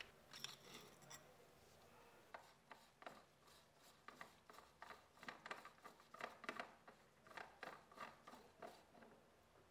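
Faint rustling and irregular light clicks of gloved hands handling and turning a metal Nikon Nikkor 180mm lens, coming more often in the second half.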